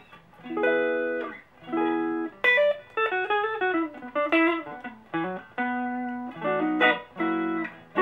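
Clean electric guitar tone from a Fender American Deluxe Stratocaster on its neck noiseless single-coil pickup, played through a mid-to-late-1960s blackface Fender Champ amp. It plays several ringing chords, a quicker run of single notes in the middle, then more chords.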